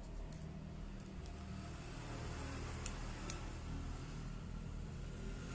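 Steady low hum of a running engine in the background, with two light clicks about three seconds in.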